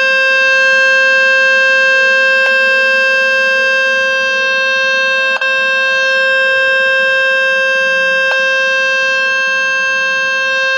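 Speaker-cleaning tone from the Fix My Speaker tool played through a phone's loudspeaker to shake dust out of it: a loud, steady, unchanging buzzy tone, with short clicks about every three seconds.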